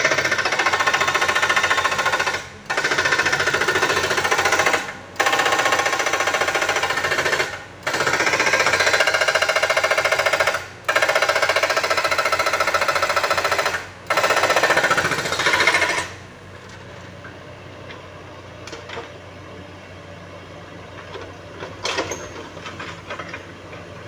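Hydraulic breaker on a Komatsu PC78US mini excavator hammering rock with rapid blows, in loud runs of a few seconds with brief breaks between. About two-thirds of the way through the hammering stops, leaving the excavator's engine running more quietly with a couple of single knocks.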